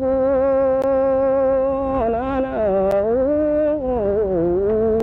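A woman singing solo, holding long, slightly wavering notes without words. The pitch steps down about two seconds in, rises near three seconds, then sinks lower around four and a half seconds.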